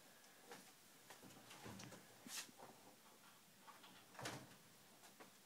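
Near silence: room tone with a few faint rustles and soft knocks, the most distinct about four seconds in.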